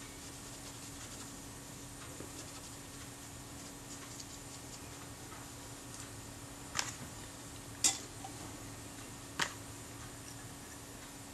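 Faint steady hum of room tone, broken by three short sharp ticks about seven, eight and nine and a half seconds in, from small tools and parts being handled on the work mat.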